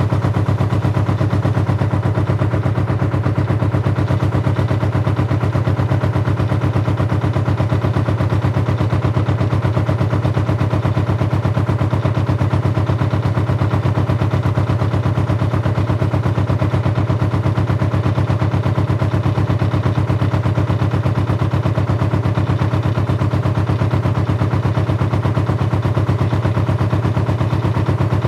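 Canal narrowboat's engine running at a steady speed, heard on board: an even, rapid chugging with a strong low hum.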